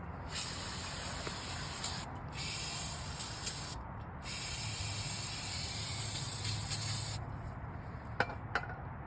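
Aerosol can spraying in three long hissing bursts, followed by two sharp clicks near the end.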